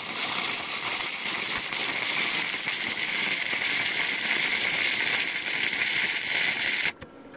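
Gasless flux-core wire welder arc running a fillet weld on thin sheet steel, gun on negative and ground on positive: a steady, dense crackle and hiss that cuts off suddenly near the end when the arc is broken.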